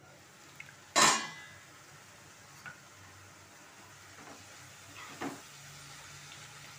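A stainless steel pan lid clanks once, sharply, about a second in as it is taken off the pan. Later a spoon clicks and scrapes, stirring leafy greens and grated carrot in a non-stick kadai.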